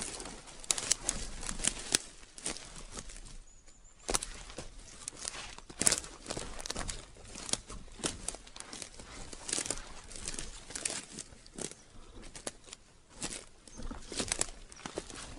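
Footsteps crunching and rustling over gravel and debris, an uneven series of crunches about two a second.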